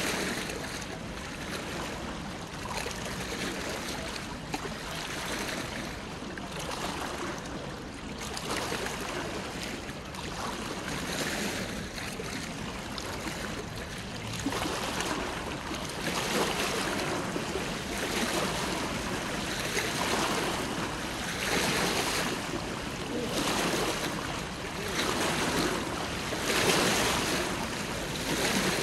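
River water lapping and splashing against the bank in swells every couple of seconds, growing stronger about halfway through.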